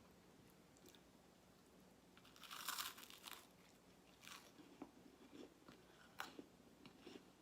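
Biting into crusty garlic bread: a loud crunch about two and a half seconds in, a shorter crunch a second or so later, then quiet wet chewing clicks.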